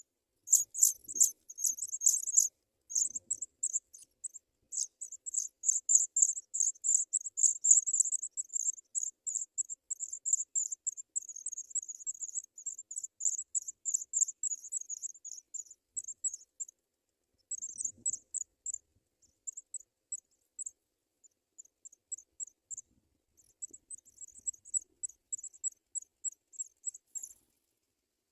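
African pipit nestlings begging: rapid trains of thin, very high-pitched cheeps that run densely for the first half and turn sparser and broken in the second half.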